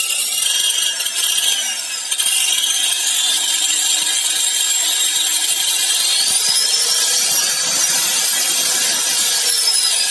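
Electric angle grinder running with no load, its motor whine gliding in pitch as a dimmer speed controller on its supply is turned: the speed dips in the first couple of seconds, climbs to its highest a little past the middle, and drops again near the end.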